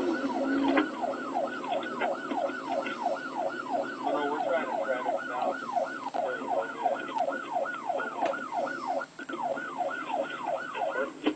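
Police car siren in rapid yelp mode: a fast pitch sweep repeating about four times a second.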